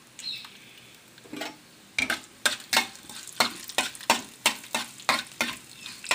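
Metal spatula scraping and stirring tempering spices (mustard seeds and lentils) frying in hot oil in a metal kadai, with a light sizzle. Sharp strokes come about three a second from about two seconds in.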